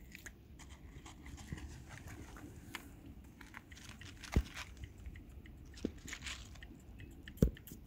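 Cat crunching dry kibble: many small irregular crunches and clicks of chewing. Two sharp low knocks stand out, one about halfway through and a louder one near the end.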